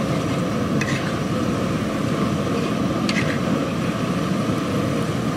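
Huayro potatoes deep-frying in a wok of hot oil over a powerful gas burner: the burner's steady roar under the hiss and bubbling of the oil. A couple of light clinks from the metal skimmer stirring in the pan, about a second in and again about three seconds in.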